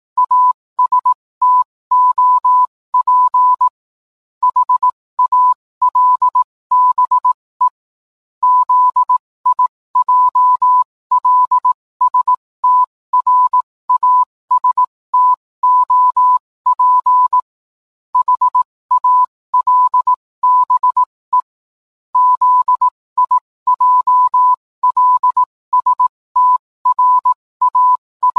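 Morse code beeps: a single steady electronic tone keyed on and off in short and long pulses, with a longer pause every few seconds between groups.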